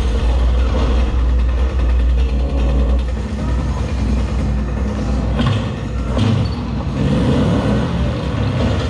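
Action-film sound effects played loud through a Klipsch Reference 5.1 surround system: a heavy vehicle rumble with deep bass, easing after about three seconds, then a couple of sharp crashes past the middle.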